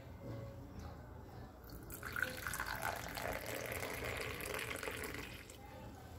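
Hot ginger milk tea poured from a metal pan into a mug, a steady splashing pour that starts about two seconds in and stops about three and a half seconds later.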